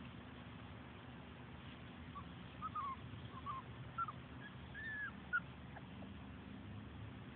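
Siberian husky puppies giving a string of short, high squeaky whines and yips, about eight in a few seconds, ending in a slightly longer sliding whine and a sharp click, over a low steady hum.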